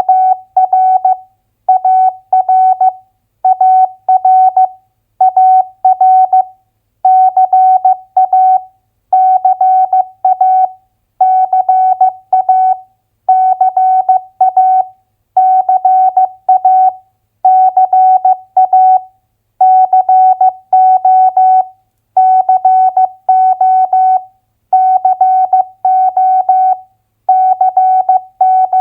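Morse code (CW) keyed as a single steady beep tone at 15 words per minute, sending two-letter US state abbreviations for head-copy practice. Each abbreviation is a short cluster of dots and dashes, with a brief silence between clusters, about one every two seconds.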